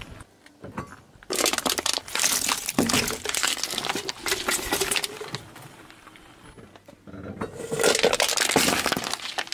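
Car tyre rolling over and crushing small objects on asphalt: two spells of dense crackling and crunching, one starting about a second in and another near the end, the second as the tyre rolls onto an aluminium drink can.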